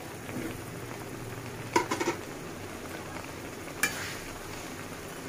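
A flat metal spatula stirring pointed gourd pieces in a metal kadai, knocking against the pan three times in quick succession about two seconds in and once more near four seconds. A steady low hiss from the pan with its splash of water runs underneath.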